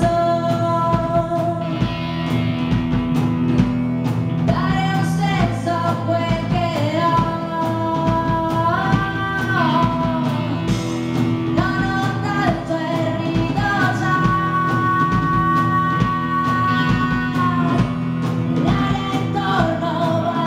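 Live rock band playing: drum kit, bass guitar and electric guitars, with a female voice singing long held notes that slide up and down.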